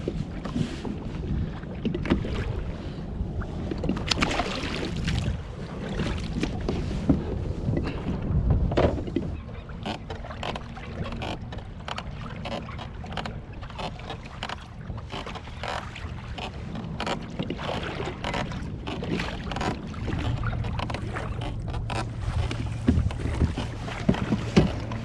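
Wind buffeting the microphone and choppy water slapping against a kayak hull, with scattered short knocks and clicks of rod and tackle being handled. A low steady hum comes in for a few seconds near the end.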